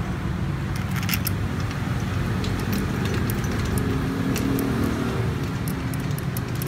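Steady low rumble of road traffic, with scattered small metallic clicks and plastic-wrap crinkles as a tubular handle is fitted onto a folding bed's steel frame by hand.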